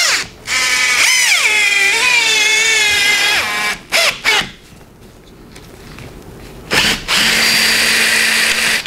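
Cordless drill driving a threaded insert nut into a hole in a plywood bench top. The motor whine climbs, then sags lower as it takes the load, before two short blips of the trigger. Near the end it runs again steadily for about two seconds.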